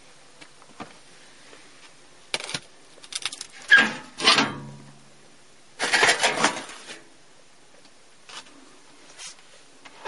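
Sheet-metal access panel of a forced-air furnace being taken off: a few small clicks, then louder clanks and scrapes of metal from about two and a half to seven seconds in.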